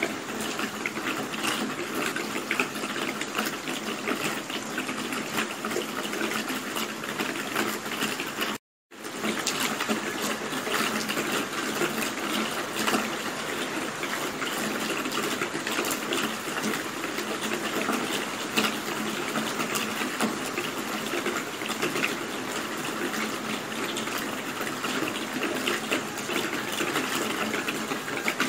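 Steady rain falling, an even hiss of many drops with scattered sharper drop ticks. It cuts out completely for a fraction of a second about nine seconds in, then resumes at the same level.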